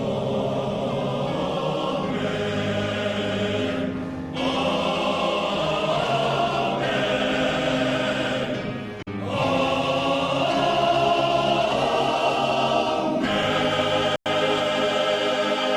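Welsh male voice choir singing sustained chords in long phrases, with short breaks between phrases about every four to five seconds. The sound cuts out for a split second just after 14 seconds in.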